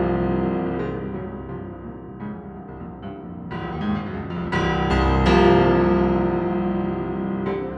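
Slow piano music, with sustained chords and new notes struck every second or so.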